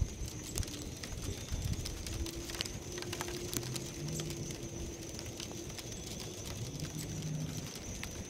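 Outdoor ambience as a thunderstorm approaches: a low steady rumble, a thin high-pitched whine throughout, and scattered faint ticks and clicks.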